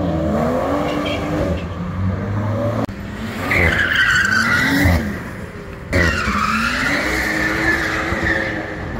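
A car's engine revving hard, with tyres squealing from about a third of the way in and again through the last three seconds; the squeals are the loudest part. The sound breaks off abruptly twice, as at splices between clips.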